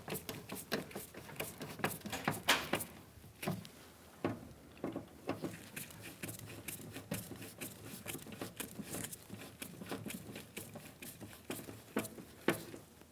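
Phillips screwdriver driving the screws of a plastic interior door handle by hand: a run of irregular light clicks and scrapes of metal on plastic.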